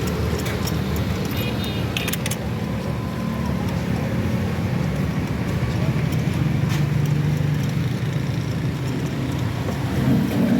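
A car engine running steadily at idle, with a few light metallic clicks about two seconds in.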